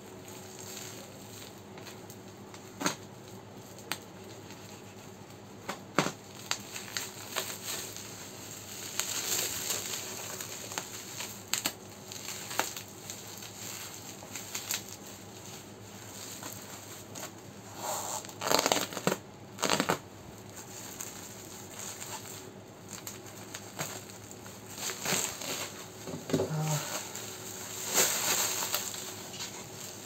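Bubble wrap and packing foam crinkling and rustling as a parcel is cut and pulled open by hand. There are scattered sharp clicks in the first few seconds, then bursts of louder crinkling and tearing.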